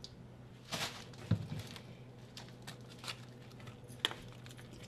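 Faint kitchen handling noises: a few soft clicks and taps about a second in and again near the end, over a low steady hum.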